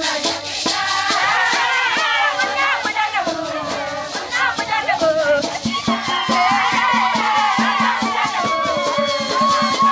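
A group of women singing together while gourd rattles are shaken in a steady, regular rhythm.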